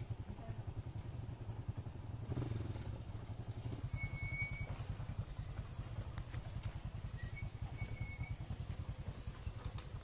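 Small motorcycle engines running steadily at low speed with a rapid low pulsing, working up a rough dirt track. A couple of short high whistles sound about four and eight seconds in.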